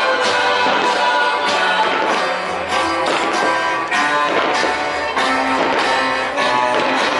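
Music with guitar, the soundtrack of a fireworks show.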